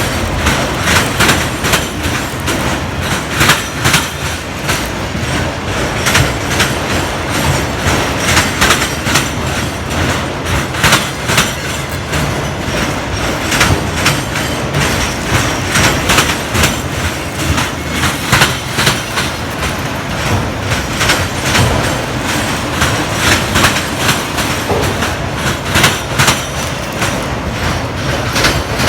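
Railroad cars rolling past at speed, their wheels clicking and clattering over rail joints several times a second over a steady rumble.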